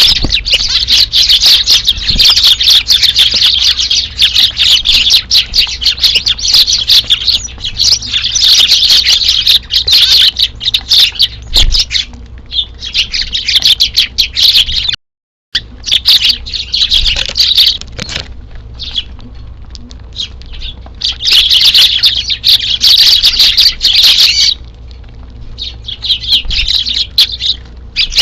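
A flock of Eurasian tree sparrows chirping busily at a feeding spot, a dense run of quick overlapping chirps that eases off into short lulls several times. The sound drops out completely for a moment about halfway through.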